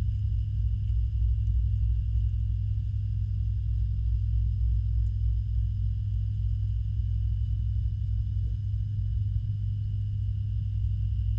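Steady low rumbling hum picked up underwater in a backyard koi pond, with faint steady high tones above it.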